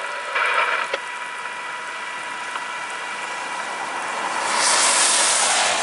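Steady rain, then a car passing on the flooded road with its tyres hissing through the water. The tyre hiss swells from about four and a half seconds in and is loudest near the end.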